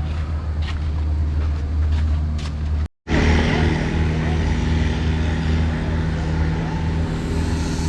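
Steady engine drone with a fixed low hum, cut off abruptly near three seconds in and resuming slightly louder.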